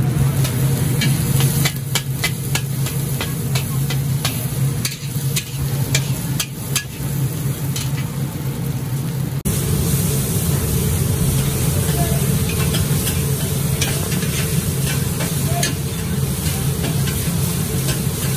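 Hokkien mee noodles sizzling in a large wok while a long metal spatula scrapes and clacks against the wok again and again, over a steady low hum.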